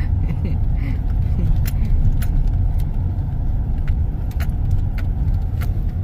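Steady low rumble of a car driving slowly, heard from inside the cabin, with a few light clicks scattered through it.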